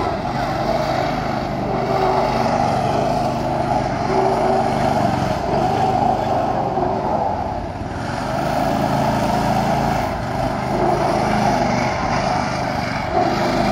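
Go-kart engine running steadily as the kart drives around the lot, its pitch shifting a little.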